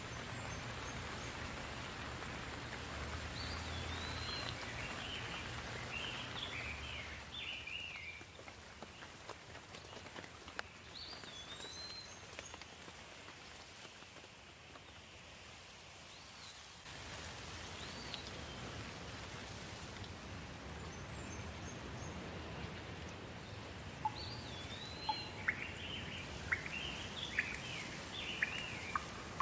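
Steady rain falling, with small birds chirping in short phrases every few seconds and a few sharp drip taps near the end. The rain eases for several seconds in the middle, then picks up again.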